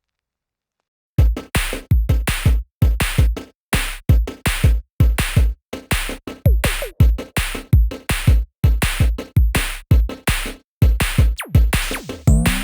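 Background electronic music: after about a second of silence, a loud drum-machine beat with heavy bass kicks in and repeats steadily, a little over two beats a second.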